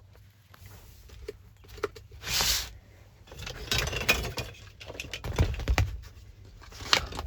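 Handling noises: rustling, clicks and small knocks as things are moved about, with a short hissing burst about two seconds in.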